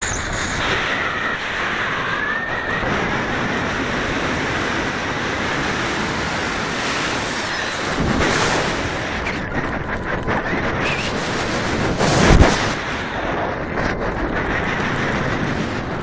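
Wind rushing over the microphone of a camera carried by a falcon in flight: a steady rush of air noise, with louder gusts about eight and twelve seconds in.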